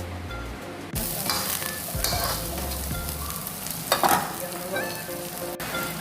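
Food sizzling in hot oil in a frying pan, the sizzle jumping up suddenly about a second in, with a spatula stirring and clattering against the pan a few times.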